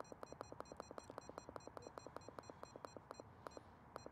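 Faint, rapid electronic ticking from a handheld RigExpert Stick Pro antenna analyzer as it sweeps the antenna, about ten ticks a second, thinning to a few scattered ticks near the end.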